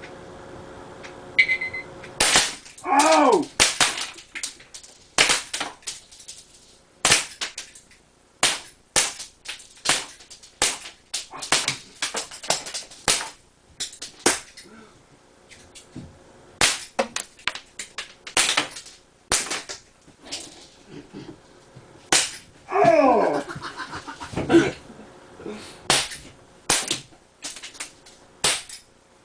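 Crosman 357 CO2 pellet revolvers firing copper 4.5 mm pellets: dozens of sharp pops in quick runs with short pauses between them. Twice, about three seconds in and again near the end, a short wavering, sliding tone sounds among the shots.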